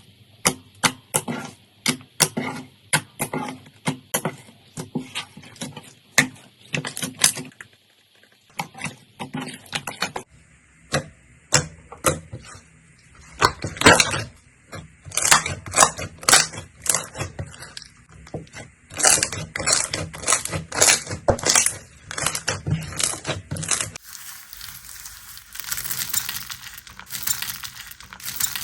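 Slime being squeezed and pressed by hand, a run of sharp clicks and crackling pops several times a second. Near the end it turns to a denser, hissing crackle.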